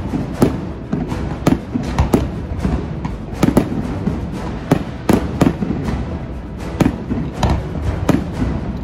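Aerial fireworks shells bursting in a rapid, irregular series of sharp bangs, about two a second, with background music laid over them.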